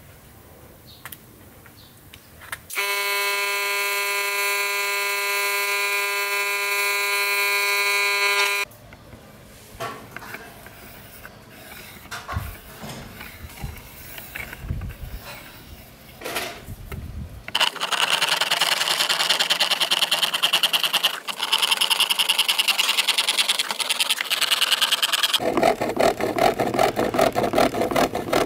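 Hand fret saw cutting a thin sheet, a loud, fast rasping of strokes that takes over in the last third and turns coarser and lower near the end. Earlier, a steady high tone holds for about six seconds, followed by quiet scratching.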